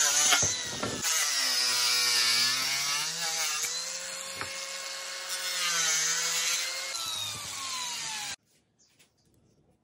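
Milwaukee angle grinder with a cut-off disc cutting into a wooden board, its motor pitch dipping and recovering under load. It then runs free and slows, and the sound cuts off abruptly about eight seconds in.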